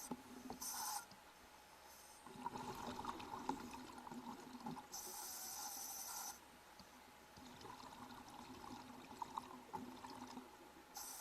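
Water trickling and pouring, heard in short stretches that change abruptly.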